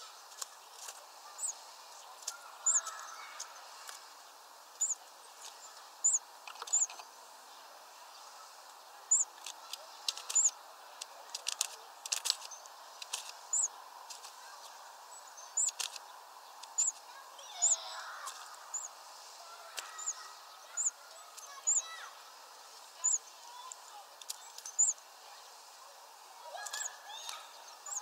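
Small songbirds giving short, high-pitched chirps, repeated irregularly about once a second, mixed with sharp clicks.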